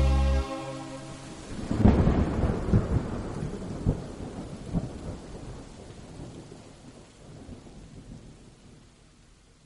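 The last held chord of the song cuts off about half a second in, then thunder rumbles over the hiss of rain, swelling several times and slowly fading away.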